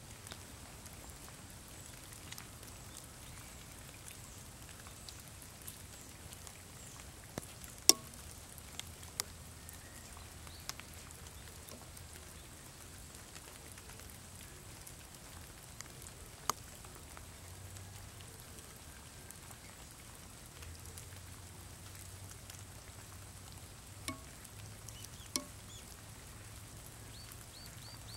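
Light steady rain, with scattered sharp drips close by; the sharpest comes about eight seconds in. Near the end a bird gives a quick run of short, high chirps.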